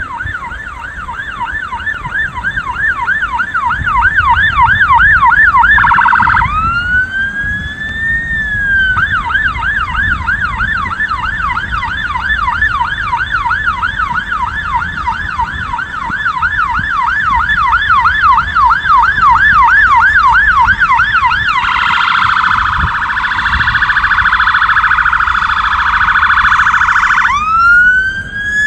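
Fire engine siren sounding continuously and switching tones: a fast yelp, a single slow rising-and-falling wail about six seconds in, the yelp again, then a faster, harsher warble for about six seconds, and a rising wail near the end. Low traffic rumble runs underneath.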